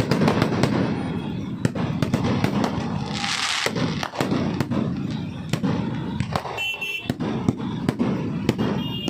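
Aerial firework shells (sky bombs) going off in rapid succession: many sharp bangs over a continuous crackle, with a brief hiss a little after three seconds in.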